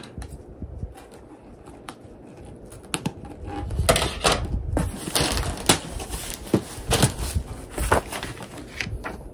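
Cardboard shipping box being handled and opened: crinkling, tearing and scattered knocks, busier from about three seconds in.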